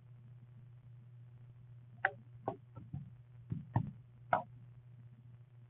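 Phone being handled and repositioned: a handful of light knocks and clicks between about two and four and a half seconds in, over a steady low hum.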